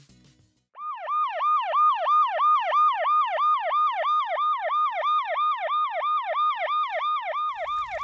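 Fire-truck siren sound effect in a fast yelp, about three to four quick up-and-down sweeps a second, starting about a second in.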